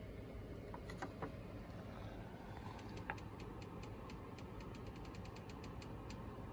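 Steady low hum of running equipment, with a few faint clicks about a second in and a quick run of faint, rapid ticks lasting about three seconds in the middle.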